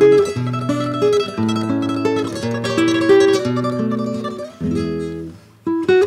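Solo classical guitar playing a waltz: plucked melody notes over bass notes. The notes die away to a brief lull about five and a half seconds in, and then the next phrase starts.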